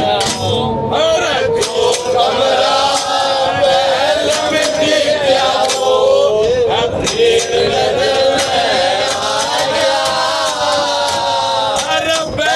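Men singing a Haryanvi ragni, a lead male voice holding and bending long notes with others joining in. Short sharp taps run through it.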